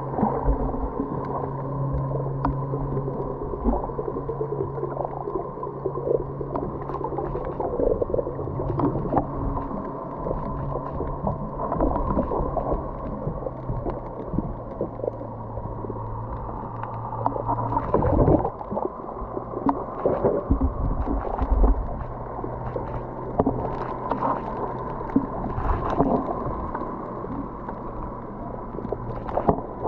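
Muffled underwater sound picked up through a camera's waterproof housing: a steady low hum and a higher steady tone over a watery rushing, with a few louder rushes and knocks partway through.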